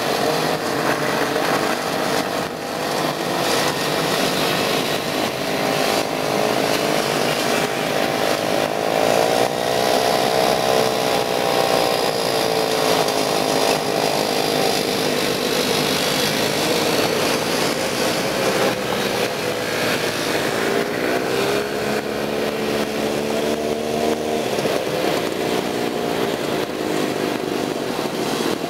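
Vintage snowmobile engines running as a line of sleds drives past one after another, the engine note rising and falling as each sled revs and goes by.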